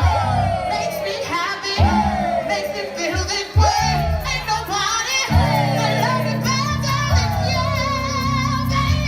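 Gospel choir singing over a house backing track with a steady bass line. A falling swoop comes back about every second and a half, and a high note is held through the last few seconds.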